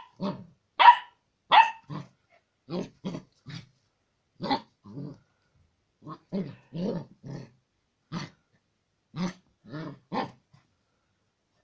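Old English Sheepdog (Bobtail) puppy barking at its own reflection in a mirror: a run of short barks, the first few louder and higher-pitched, the later ones lower and softer, stopping shortly before the end.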